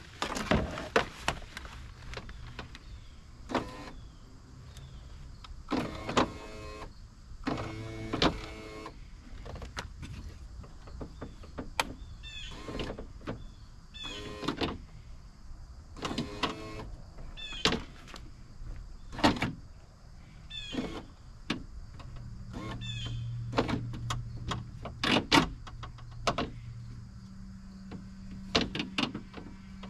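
Clicks and knocks of parts being handled inside a car door, then a replacement power window motor running with a steady hum for several seconds near the end, stopping and starting again at a higher pitch as it is tested.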